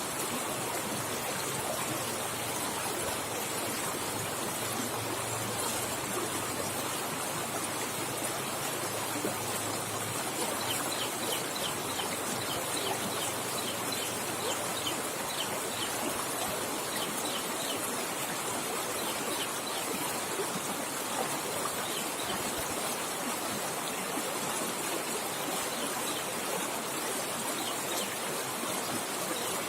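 River water rushing and flowing fast in a steady, even stream. A bird chirps in a quick run of short high notes about a third of the way in, and again briefly near the end.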